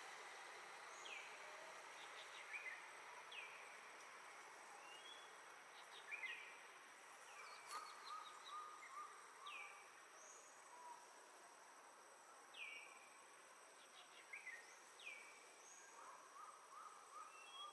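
Faint natural ambience: many short, scattered falling chirps of small birds over a steady high insect whine.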